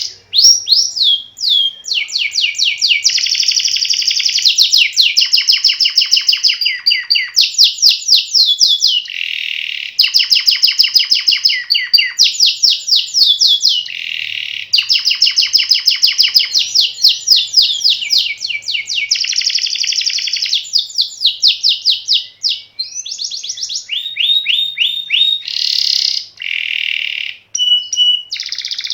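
Canary singing a long, almost unbroken song of fast rolling trills, each phrase a rapid run of high repeated notes that switches to a new trill every second or two with only brief breaks.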